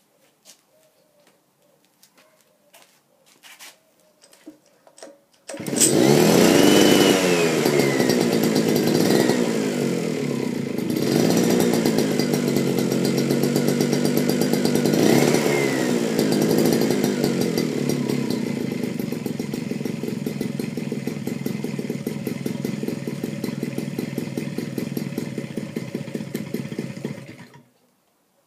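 1970 Fichtel & Sachs Stamo single-cylinder two-stroke stationary engine. After a few faint clicks, it starts about five seconds in and runs steadily, its revs rising and falling twice. It stops suddenly near the end.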